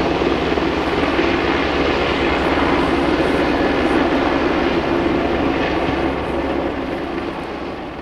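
A loud, steady mechanical drone that fades away over the last couple of seconds.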